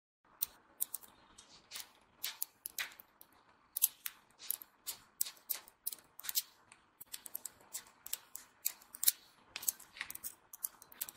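Small metal magnet balls clicking as they snap onto one another one at a time: many quick, irregular, sharp clicks while a chain of balls is wound into a flat disc.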